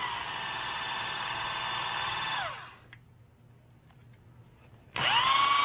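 Electric drill spinning the input shaft of a Tuff Torq K46 hydrostatic transaxle on the bench, bleeding trapped air from its pump and drive motor. It runs with a steady whine, spins down about two and a half seconds in, and after a short pause starts again near the end.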